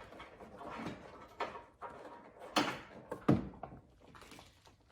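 Hard plastic knocks, clicks and light rubbing as a taillight assembly is handled and offered up into its opening in the car body. There are a few sharp knocks, the two loudest past the middle.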